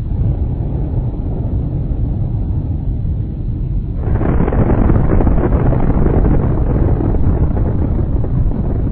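Explosion sound effect: a deep, loud rumble that starts suddenly and turns harsher about four seconds in, then keeps rolling.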